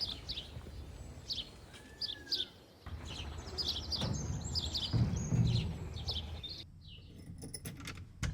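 Small birds chirping: many short, quick high notes repeated over a low background rumble, which cut off abruptly about two-thirds of the way in.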